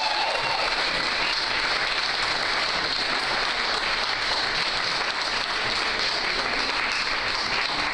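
A room of wedding guests applauding steadily as the live song ends, the last sung notes fading in the first half-second.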